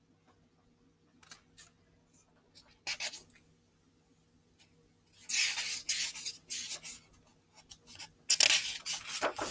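Paper rustling and rubbing as a picture book is held up and its pages handled and turned, in short scattered bursts that grow longer and louder from about halfway through.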